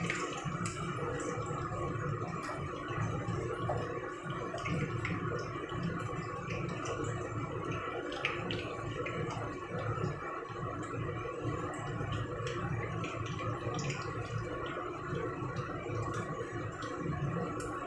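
Battered chicken deep-frying in hot oil in a wok: steady sizzling with many scattered sharp crackles, and light taps and scrapes of a metal skimmer and spatula against the pan as the golden pieces are lifted out, over a low steady rumble.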